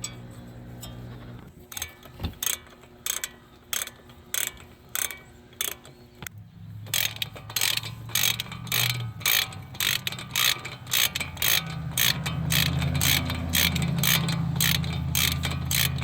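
Hand socket ratchet clicking as it runs in the E20 Torx bolts of the CV axle's support bracket, at first about two clicks a second, then faster strokes from about halfway through. A low steady hum comes in underneath for the second half.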